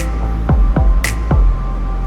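Electronic background music with a steady beat: deep kick-drum thumps and a sharp snare-like hit about once a second.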